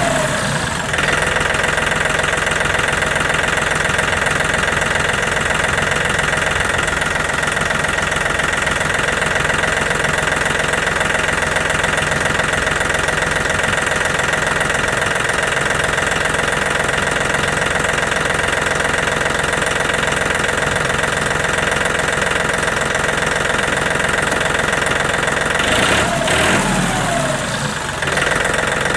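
John Deere 3720 compact tractor's Yanmar diesel engine running steadily with a knocking diesel clatter. Its pitch shifts briefly about a second in and again near the end.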